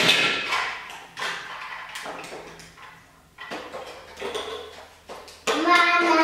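Plastic Lego bricks clattering and clicking irregularly as they are handled and sorted, with a short voice near the end.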